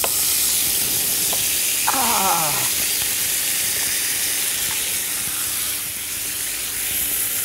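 Leftover shredded pot-au-feu beef sizzling steadily in hot oil in a frying pan; the sizzle starts suddenly as the meat drops into the pan.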